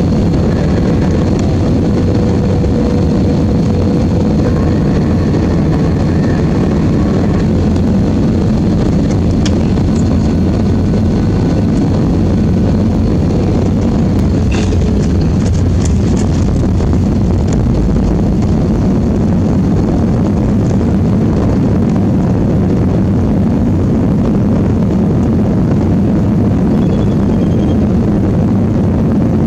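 Steady loud cabin noise of an Airbus A320 heard over the wing, engines and rushing air, through final approach and touchdown with flaps down. A faint whine fades out in the first several seconds, and a short click comes about halfway through.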